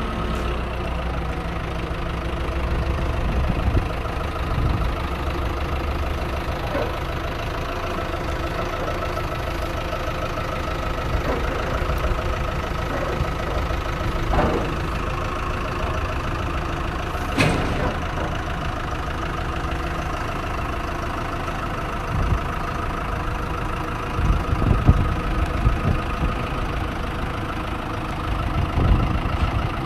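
A vehicle engine running steadily at low revs while the concrete mixer is loaded, with a couple of short sharp knocks about halfway through.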